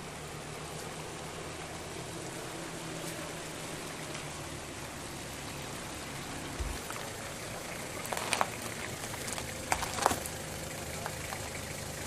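Steady outdoor hiss of water, with a few sharp clicks and knocks around eight and ten seconds in.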